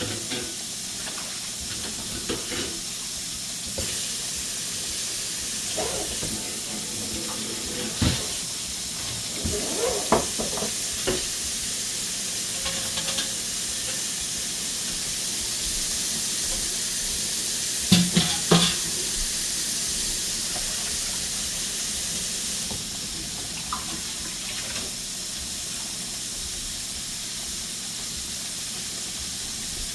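Food frying in hot oil sizzles steadily, while a sink tap runs for a stretch in the middle as something is rinsed. Dishes or utensils clatter a few times, loudest about eighteen seconds in.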